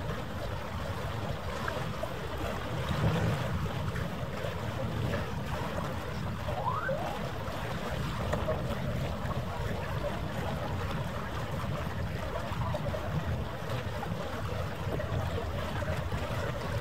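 Harbour ambience with wind on the microphone: a steady low rumble and noise, and a brief rising chirp about seven seconds in.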